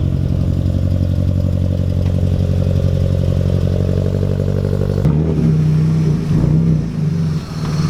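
A BMW E46's engine running steadily, its note changing abruptly about five seconds in.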